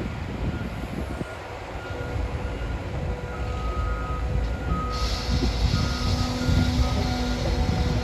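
Caterpillar 325 hydraulic excavator running and working, a steady low diesel rumble, with short repeated beeps. About five seconds in a hiss starts, then stops near the end.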